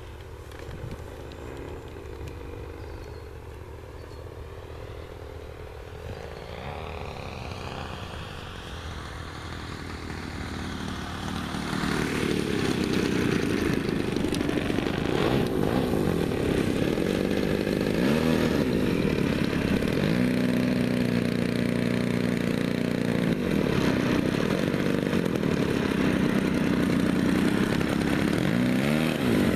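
Gary Ward MX2 RC aerobatic airplane's engine and propeller, fainter at first with the pitch gliding up and down as it flies in. From about twelve seconds in it is louder and steady as the plane runs along the grass close by, the pitch shifting with the throttle.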